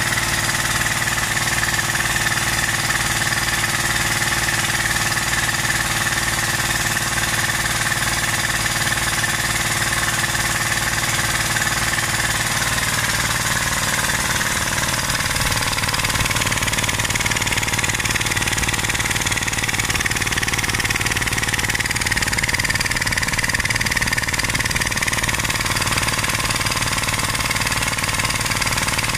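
A Sanborn 4 HP vertical piston air compressor, driven by its 230 V electric motor, running steadily. The pump beats in a fast, even rhythm over a constant motor hum.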